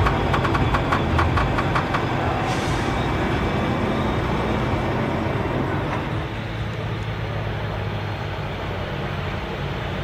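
Tractor engine running steadily, with a rapid series of clicks over the first couple of seconds.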